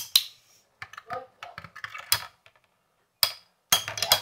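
Two metal-wheeled Beyblade spinning tops clashing in a plastic stadium: sharp metal-on-metal clacks, a pair at the start, single hits about two and three seconds in, and a quick run of hits near the end.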